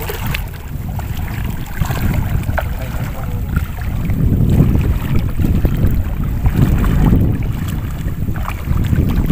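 Wind buffeting the microphone in a loud, uneven rumble that gusts strongest in the middle, over water sloshing and splashing around the legs of people wading.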